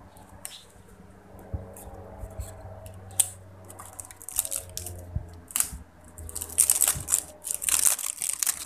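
Cosmetic packaging being handled and opened: scattered clicks and rustles, then a spell of dense crinkling and tearing near the end.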